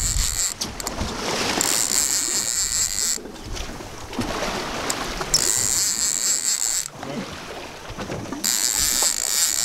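Large conventional fishing reel being cranked in three spells of about a second and a half, each a high-pitched whir, as a halibut is reeled up from the bottom. Between the spells there is wind and water noise.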